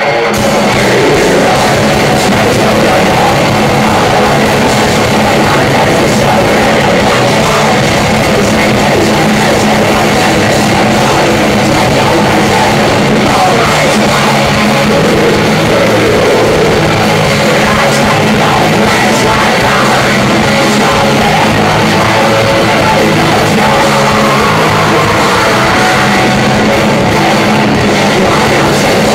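Live thrash metal band playing loud and steady: distorted electric guitars and drums.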